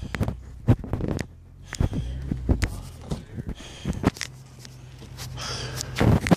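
Hurried footsteps on a concrete sidewalk mixed with the scuffs and knocks of a phone being handled on the move: irregular clicks over a low rumble, with a louder burst near the end.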